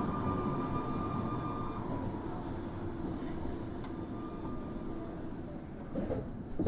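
Tokyo Metro 01 series subway car running and slowing, its rolling noise fading; a steady tone cuts out about two seconds in, and a couple of short knocks come near the end. The car's wheels have flat spots, which give it an abnormal running noise.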